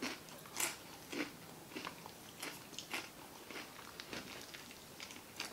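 A person chewing crunchy food close to the microphone: faint, irregular crunches and mouth clicks, a few a second.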